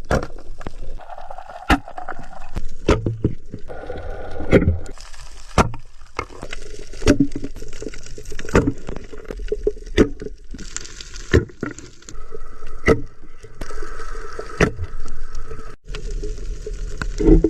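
Fish being fed in a pond: sharp splashes and knocks at irregular intervals, about one every second or so, with water sloshing between them.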